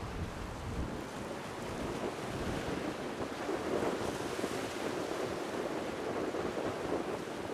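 Wind gusting on the microphone over a steady wash of sea noise.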